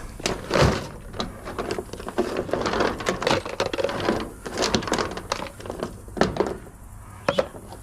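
Scrap metal and wire being picked through and tossed aside by hand: irregular clinks, knocks and rattles.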